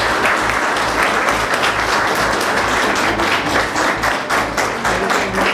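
Audience applauding: dense clapping from many hands, keeping up steadily without a break.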